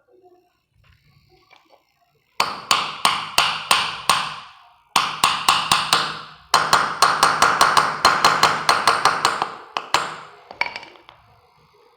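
Hammer tapping a new wheel bearing into its seat in a Honda 160's wheel hub part: rapid blows, about four a second, in three runs, each one ringing briefly, with a last couple of taps near the end.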